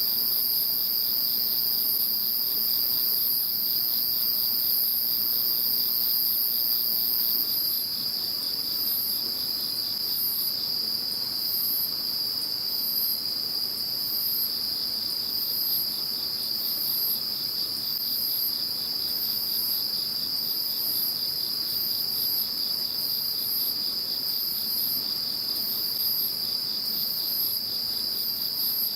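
A chorus of singing insects: one keeps up an unbroken high trill, while an even higher-pitched insect sings steadily at first, then about seven seconds in switches to short chirps repeated about once a second.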